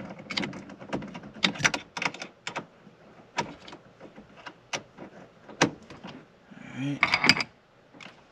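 Irregular metallic clicks and knocks of a socket wrench being fitted onto and worked on a car battery fastener, spaced about half a second to a second apart.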